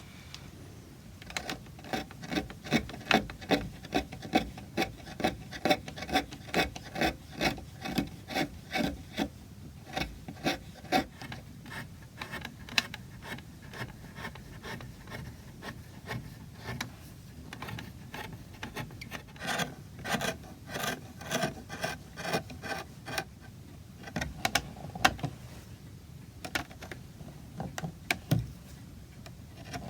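Hand carving tools working oak: short scraping, cutting strokes at about two a second, in bursts with brief pauses.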